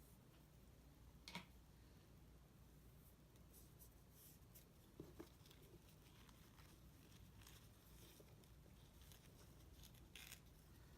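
Near silence: room tone with a few faint rustles of a thin paper napkin being handled and torn, a light tap about a second in and another near the middle.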